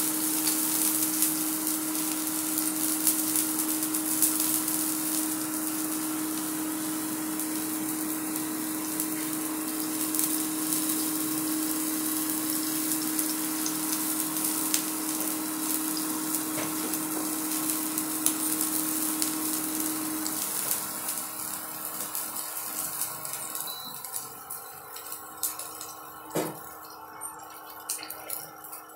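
Oil sizzling and crackling as it heats in a nonstick wok on an induction cooktop, over a steady hum that weakens about two-thirds of the way through. The sizzle fades in the last few seconds, and there is a single click near the end.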